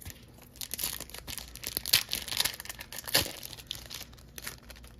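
A foil Pokémon TCG 'Trick or Trade' mini booster pack being torn open, its shiny wrapper crinkling and crackling. The crinkling is loudest between about one and three and a half seconds in, then fades.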